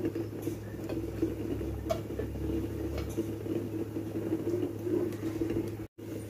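A pan of oil heating on a stove: a steady low hum with a few faint ticks. The sound cuts out briefly near the end.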